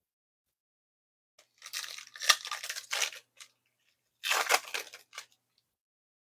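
Foil wrapper of a football trading card pack being torn open and crinkled, in two bursts of rustling about a second apart.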